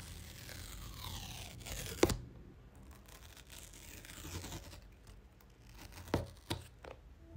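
The paper tear-strip seals of an iPhone 16 Pro Max box being pulled and torn away in two long tearing stretches. A sharp snap comes about two seconds in, and two light knocks follow near the end.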